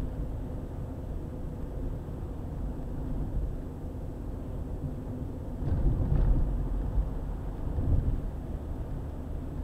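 Car driving along a highway: a steady low rumble of road and engine noise, swelling louder for about a second a little past halfway through and briefly again near the end.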